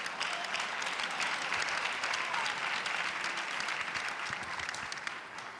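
Crowd applauding after a point in a table tennis match, many hands clapping at once, dying away near the end.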